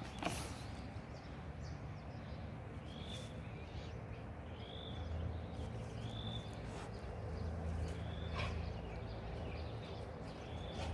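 A bird repeating a short call about every one and a half seconds, over a low rumble, with a sharp click just after the start and another later on.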